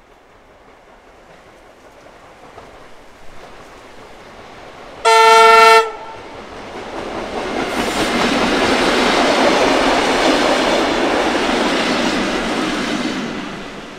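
Tait suburban electric train sounding one short horn blast about five seconds in, then running past on the rails, its noise swelling and then fading away near the end.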